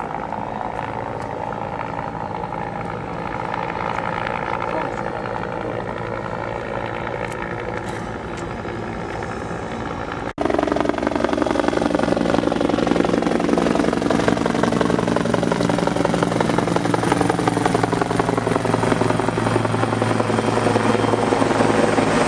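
Helicopter flying over the harbour, its rotor and engine drone steady. After an abrupt cut about ten seconds in the drone is louder and closer, its pitch slowly sliding.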